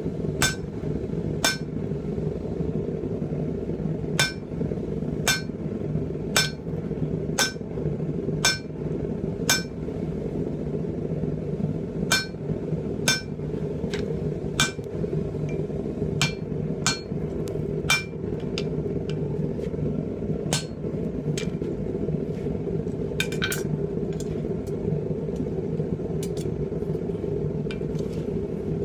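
Blacksmith's hand hammer striking hot steel on an anvil while forging a pipe tomahawk, about one blow a second, each with a bright metallic ring. The blows thin out to a few scattered strikes after about twenty seconds, over a steady low hum.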